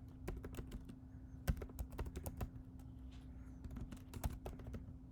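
Computer keyboard typing: irregular quick key clicks as a title is typed, over a faint steady hum.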